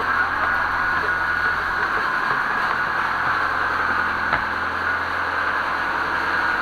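Boat engine idling with the boat moored: a steady mechanical drone with a constant low hum.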